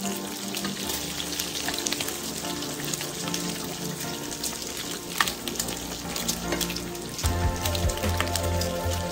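Bacon sizzling and crackling in hot fat in a frying pan, with metal tongs clicking against the pan as the strips are turned. Background music plays underneath, with a heavier bass line coming in about seven seconds in.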